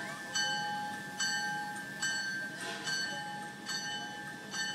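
Steam locomotive's bell ringing steadily, one clang a little under every second, each strike ringing on. A short hiss about halfway through.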